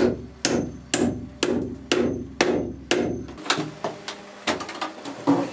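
Hammer driving a nail into wood: seven firm blows, about two a second, followed by a run of lighter, quicker taps.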